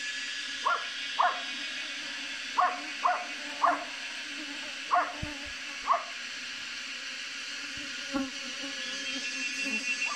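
Steady hum of a swarm of bees, with a dog barking in about eight short, separate barks over it.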